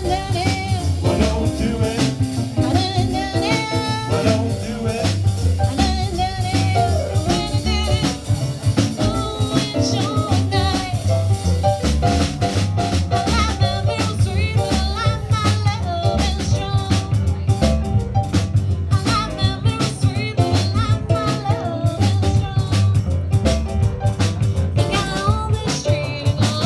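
A live band playing upbeat jazz-style music with a drum kit keeping a steady beat and a voice singing over it.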